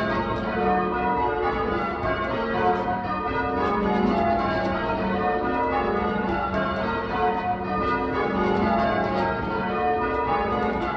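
A ring of eight church bells, tenor 14 cwt, tuned to F# and mostly cast by Taylor's, being rung in call changes: a steady, even run of overlapping bell strokes.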